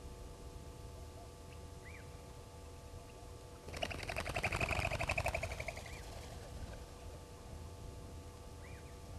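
A bird's rapid trilling call, about two seconds long and falling slightly in pitch, a little under halfway through. Short high chirps of small birds come now and then around it.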